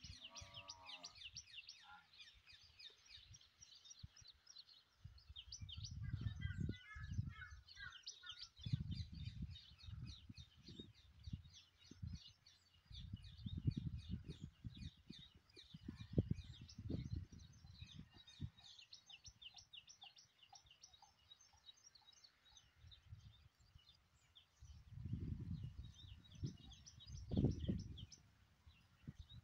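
Birds chirping steadily in a dense chorus of short, high calls, with wind rumbling on the microphone in gusts that come and go.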